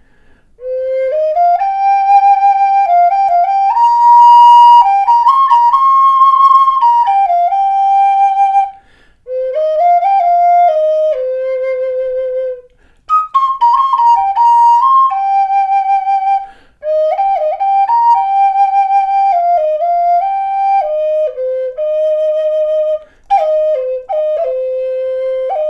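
High Spirits Merlin Native American flute in high C minor, made of walnut, playing a solo melody. The notes step up and down in short phrases with brief breath pauses between them.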